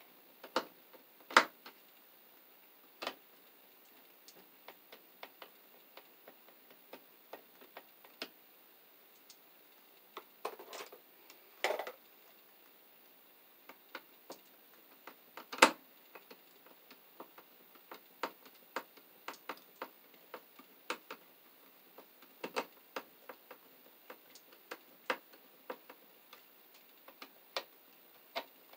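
Hand screwdriver driving a light switch's mounting screws into a plastic electrical box: irregular small clicks and ticks, with a few sharper clicks and a brief scraping about ten to twelve seconds in.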